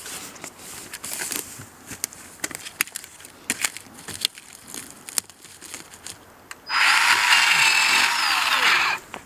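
Scattered light clicks and crackles, then a chainsaw runs at high revs for about two seconds near the end, cutting further into the trunk of a partly felled tree, and its pitch drops as it comes off the throttle.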